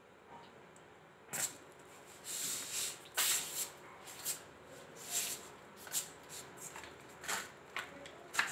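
Irregular soft rustling and scuffing sounds, starting about a second in and recurring every second or so.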